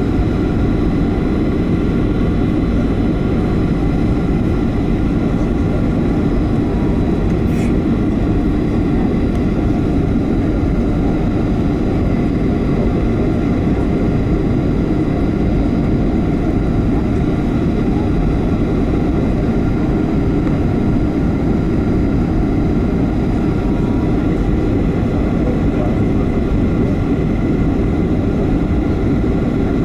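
Boeing 757-300 airliner heard from inside the passenger cabin during the descent for landing: a loud, steady low rumble of engines and airflow with faint, steady high-pitched whine tones above it. A faint click sounds once, a few seconds in.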